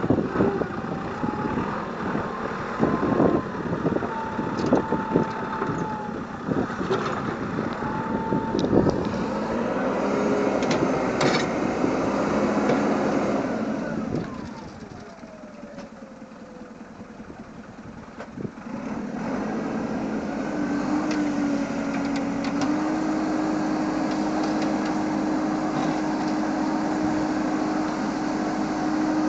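Diesel engine of a JCB 3CX backhoe loader working the backhoe arm, its pitch rising and falling with knocks and clanks in the first half. About halfway through it drops back and goes quieter for a few seconds, then settles into a steady, even note for the last third.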